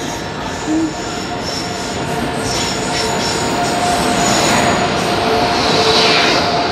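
Diesel-hauled Kota Jan Shatabdi Express pulling into the platform and running past close by. The rumble of the locomotive and wheels grows louder toward the end as the locomotive draws level, with a steady high whine over the noise.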